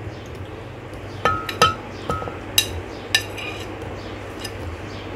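A metal knife clinking against a plate and the glass blender jar as cubed mango is scraped into the jar: about six sharp clinks, a couple of them with a short ring.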